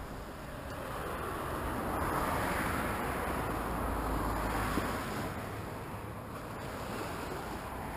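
A passing car's tyre and engine noise, swelling over the first couple of seconds, peaking, and fading away by about six seconds in, over a low rumble of wind on the microphone.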